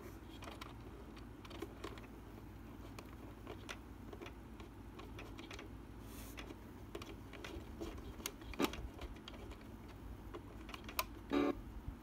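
Scattered light clicks and taps from the plastic jukebox-shaped alarm clock being handled while its music is stopped, with a sharper click about two-thirds through and a brief low tone near the end.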